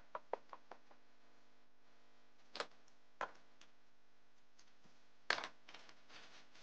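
Ratchet wrench clicking in short strokes, about five clicks a second for the first second, as a new spark plug is run in. Then two single clicks, and about five seconds in a louder clatter of metal hand tools being handled and set down.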